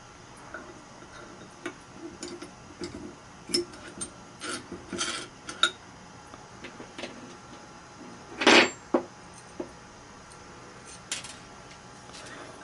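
Short metal clicks, clinks and scrapes of long steel through-bolts being handled and slid through an electric motor's housing during reassembly. There is one louder clank past the middle, followed quickly by two lighter knocks.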